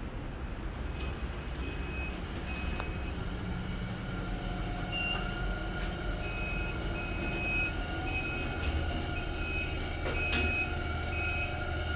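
HDB passenger lift running, very noisy after a repair: a low rumble with a steady whine that comes in about four seconds in, and a repeating series of short high squeaks.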